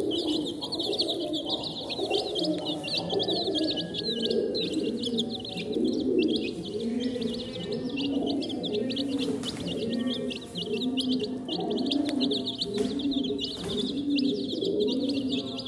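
A flock of domestic chicken chicks peeping continuously, many short high chirps overlapping, while they feed. Under the peeping, low rounded notes repeat about once a second.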